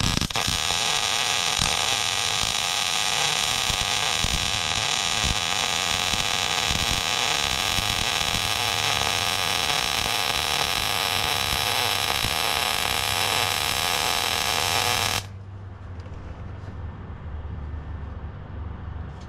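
Wire-feed welder arc crackling steadily as a steel plate is welded onto the frame channel of a Jeep XJ. The arc cuts off suddenly about fifteen seconds in, leaving a quieter low hum.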